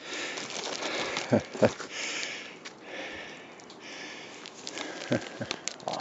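Footsteps crunching through snow on a forest trail, with a hiker's breathing and sniffs in between.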